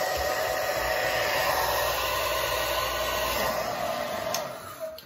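Handheld hair dryer blowing steadily, drying the gel that holds a wig's lace along the hairline. There is a click about four seconds in and the whoosh dies away near the end.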